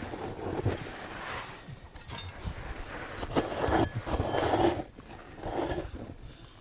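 Hands scraping and scooping loose earth in a dug-out fox burrow, in a series of short, uneven scrapes.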